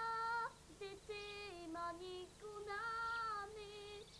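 A high solo voice singing a slow song unaccompanied: long held notes stepping up and down in short phrases, with brief breaths between them.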